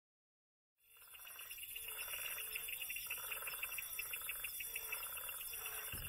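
A rhythmic chorus of animal calls fading in about a second in: a fast pulsing trill that swells and falls about once a second.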